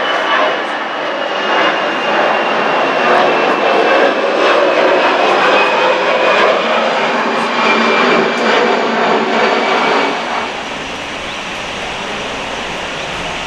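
Jet engines of an Airbus A320-family airliner at climb power just after takeoff, passing overhead as a loud, dense rush with a thin high whine that slowly falls in pitch. About ten seconds in it cuts to a quieter, steady distant rumble.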